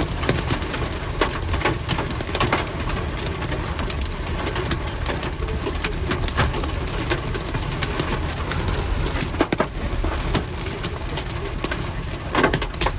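Hailstones pelting down in a storm, a dense patter of sharp irregular clicks and knocks over a steady rush of falling rain.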